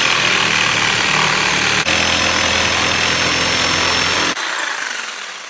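Skil electric jigsaw running and cutting through a wooden board, a loud steady buzz of motor and reciprocating blade. About four seconds in the trigger is released and the motor winds down, fading away.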